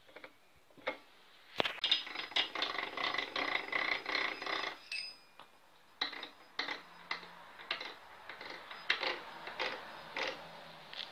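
Homemade metal shaper's table-raising gear and leadscrew worked by hand from a small handwheel, with metallic clicking and rattling. A fast run of clicks with some ringing comes about two seconds in and lasts about three seconds; sparser single clicks follow.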